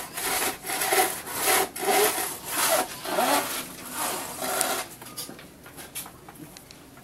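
Hand saw cutting through wood in back-and-forth strokes, about two strokes a second. The sawing stops about five seconds in.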